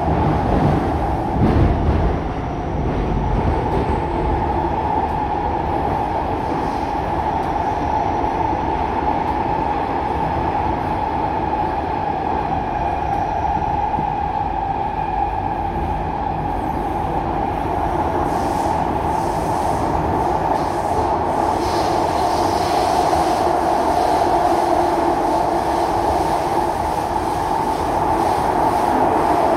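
Inside a moving SMRT C151C metro car in the tunnel: the steady running noise of the train, wheels rolling on the rails, with a few heavier knocks in the first couple of seconds. A faint high wheel squeal comes in about three-quarters of the way through.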